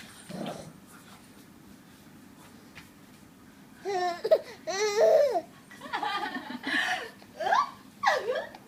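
A baby laughing: after a quiet start, a run of high-pitched, wavering laughs begins about four seconds in and comes back in several bursts.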